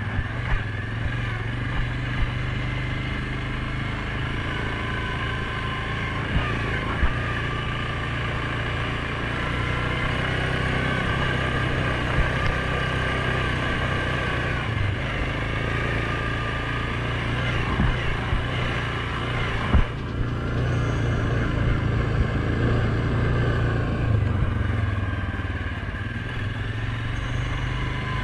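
2019 Suzuki KingQuad 750 ATV's single-cylinder engine running steadily under way on a dirt trail, with a few short sharp knocks over the rough ground.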